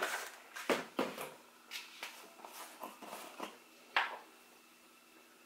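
A series of light clicks and knocks from spice jars and a plastic jar lid being handled on a kitchen counter, about eight in all, the sharpest one about four seconds in.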